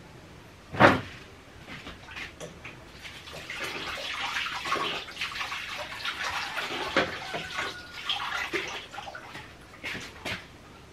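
A sharp knock about a second in, then water splashing and running into a cooking pot on the stove for several seconds, as the pot is filled to boil the vegetables, with small clinks of the pot.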